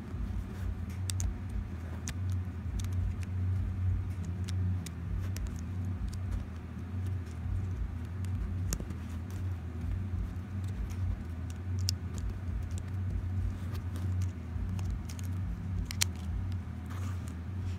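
Plastic segments of a snake twist puzzle clicking and ticking at irregular moments as they are rotated, with a sharper click near the end, over a steady low rumble.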